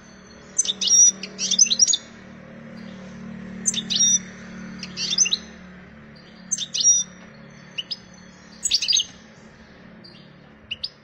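European goldfinch singing its breeding-season song: about eight short phrases of quick, high twittering notes with brief pauses between them, over a faint steady low hum.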